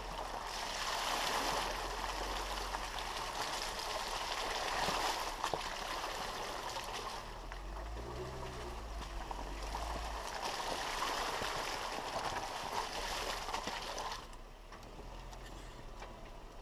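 Jeep Rubicon's tyres rolling through wet mud and puddles, a steady splashing rush. The engine runs low underneath and briefly rises and falls in pitch about eight seconds in. The rush drops noticeably quieter about fourteen seconds in.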